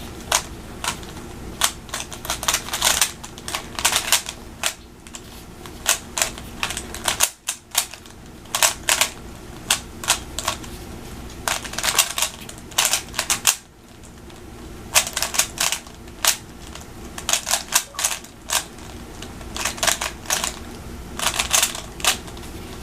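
3x3 speed cube being turned rapidly by hand: quick runs of sharp plastic clicks from the layer turns, broken by brief pauses.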